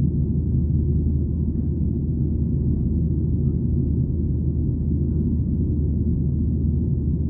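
Steady cabin noise of a Boeing 737-800 in flight: a low, even rumble of its CFM56 turbofan engines and the airflow past the fuselage, heard from a window seat.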